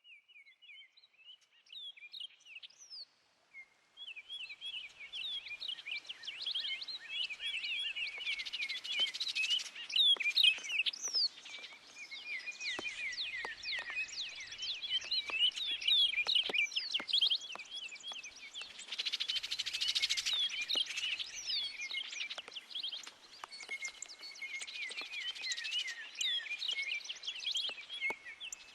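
Many songbirds chirping and calling in a dense, continuous chorus, fading in over the first few seconds, over light rain with scattered drip ticks.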